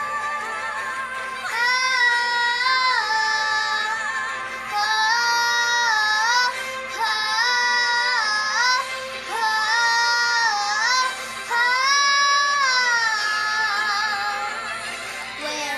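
A young girl singing a wordless vocalise, the song's 'ah' siren call, in about five phrases of held notes that step up and down.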